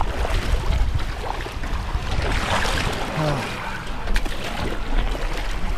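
Shallow seawater sloshing and splashing around legs and feet as people wade ashore onto sand, over a low steady rumble.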